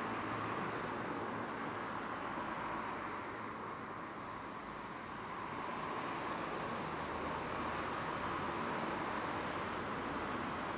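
Steady outdoor street ambience: a continuous hiss of distant traffic, easing a little about four seconds in and building again.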